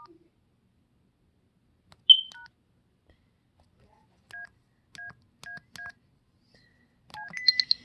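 Cell phone keypad tones as keys are pressed. A short high beep comes about two seconds in, then a two-tone key beep. From about four seconds in the same two-tone beep sounds four times, about half a second apart, and a quick run of higher beeps follows near the end.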